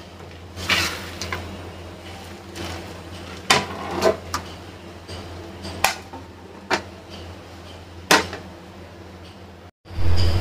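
Sprouted mung beans poured from a plastic plate into a plastic colander, with a series of short rattles and clicks as beans and plastic knock together, over a low steady hum. Near the end, water from a tap starts running loudly into a steel sink.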